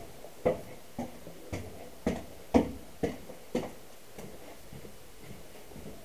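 Footsteps on a hard floor or stairs, about two steps a second, in an echoing room; they stop about four seconds in.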